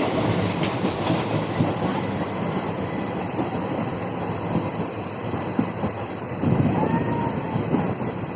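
Indian Railways train running on the track: a steady rumble of wheels on rails, with scattered clicks from the rail joints.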